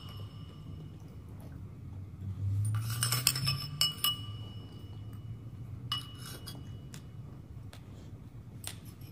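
Clinks against a glass bowl, a few scattered strikes with a short ringing note, thickest in a quick cluster a little under three seconds in.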